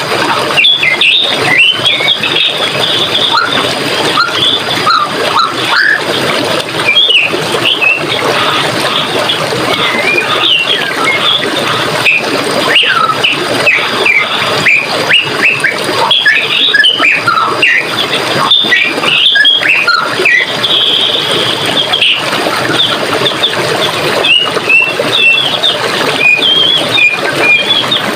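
Running water flowing steadily, with many forest birds chirping and calling over it in short notes and quick glides throughout.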